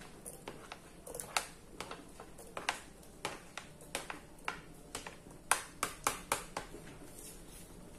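Black spoon knocking and scraping against a plastic cutting board as chopped tomato is pushed off into a pot: a quick string of sharp clicks and taps that stops near the end.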